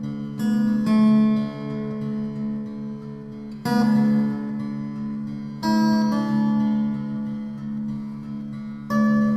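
Background music: plucked-string chords, a new chord struck every two to three seconds and left ringing.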